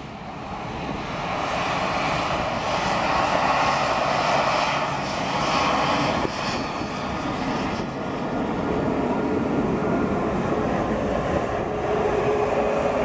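Airbus A380's four jet engines as the airliner taxis past: a loud rush that builds over the first two seconds and then holds steady, with a whine running over it.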